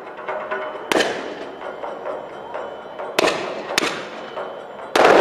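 Miniature cannons on model sailing warships firing: four sharp bangs, one about a second in, two close together a little after three seconds, and the loudest near the end, each with a short echo.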